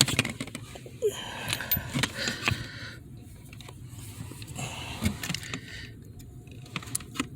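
Scattered light clicks, small metallic knocks and clinks of hand work, as a replacement accelerator pedal assembly and its screws are handled and fitted.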